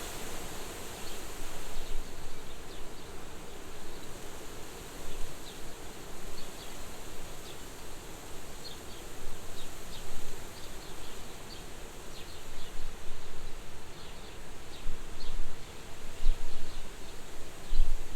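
Soft wind gusting at a farmhouse window: a steady rushing that swells and eases every few seconds, with faint short high chirps scattered throughout.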